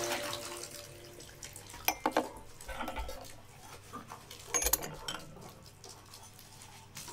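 Kitchen sounds: dishes and cutlery clinking sharply about two seconds in and again near five seconds, over a faint running-water hiss. Held music tones fade out in the first second.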